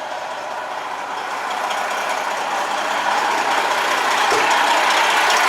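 Freightliner Cascadia semi truck's diesel engine idling steadily, getting louder over the last few seconds.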